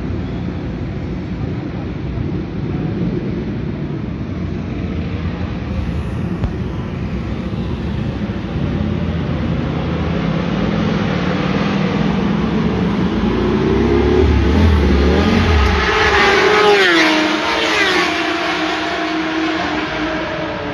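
Sport motorcycle passing at speed along the track, its engine note climbing as it approaches, loudest a little past the middle, then dropping in pitch as it goes by.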